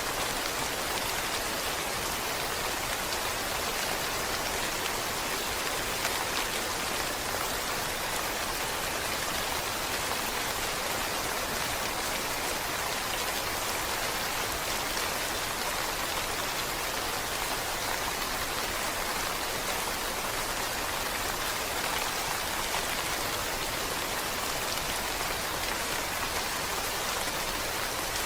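Steady, even rain falling on a surface, a continuous patter without change.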